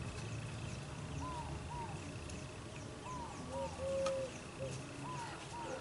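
A bird calling in pairs of short arched notes, each pair about two seconds after the last. A faint steady high tone runs under the first half.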